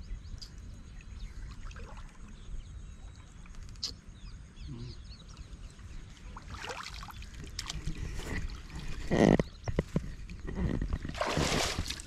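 Shallow river water sloshing and splashing as a man wades and gropes about in it with his hands, over a low wind rumble on the microphone. The splashing grows louder in the second half, with the loudest splash about nine seconds in.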